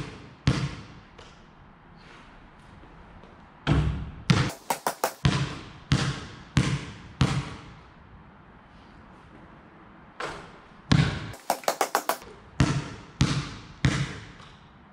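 Basketball bouncing on a concrete court as it is dribbled, in two spells of bounces about half a second apart with some quicker runs, each bounce echoing off the surrounding brick walls and roof.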